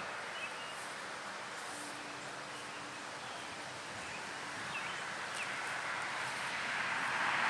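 Outdoor ambience: a steady hiss of wind and rustling leaves with a few faint bird chirps, growing a little louder near the end.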